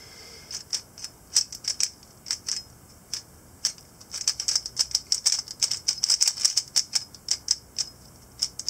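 Stickerless 3x3 speed cube being solved by hand: quick plastic clicks of its layers turning, a few scattered turns at first, then a fast, dense run of turns from about four seconds in.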